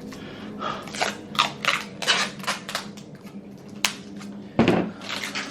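Adhesive tape being pulled off the roll in short rips while a toy doll is handled and taped down. A sharp click comes about four seconds in, and a louder knock near the end.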